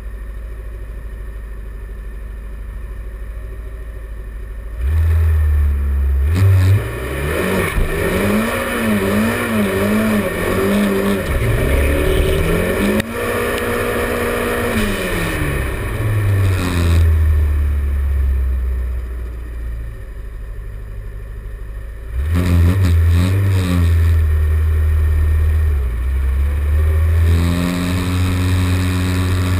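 Subaru Impreza's flat-four engine idling, then revved repeatedly with the revs swinging up and down, held high for a couple of seconds and dropping back to idle. It is blipped again a few times and then held at raised revs near the end.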